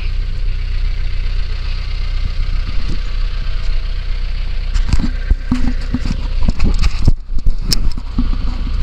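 Vehicle engine idling steadily. From about five seconds in come a run of knocks and clatter as the dead hog is being hooked up to the vehicle.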